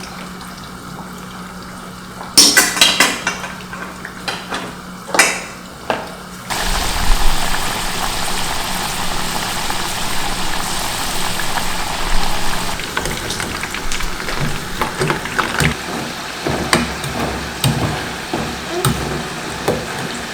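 Cookware and utensils clattering, then from about six seconds in a steady frying sizzle in a hot pan, with light clicks of a utensil stirring.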